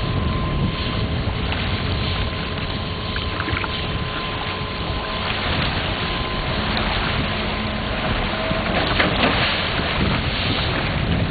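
Water rushing out through a newly opened channel in a lake's gravel bar, under steady wind noise on the microphone, with a faint steady hum.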